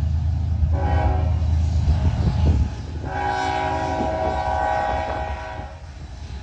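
Diesel freight locomotive horn sounding two long blasts, a chord of several steady tones, over the low rumble of the locomotive engines.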